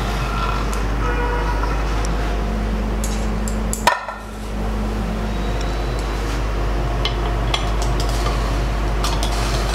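Light metal clinks and taps as an aluminium pressure cooker's lid is lifted off and a steel pot-gripper clamps onto the steaming plate inside, over a steady low hum.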